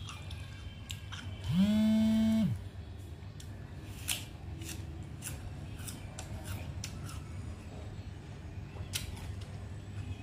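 Crisp crunches and clicks of chewing a bitten wax apple (mận) dipped in chili salt. About a second and a half in comes a loud, steady hummed tone lasting about a second.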